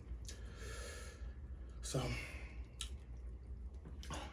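A person's long, breathy sigh, followed by a couple of light clicks near the end.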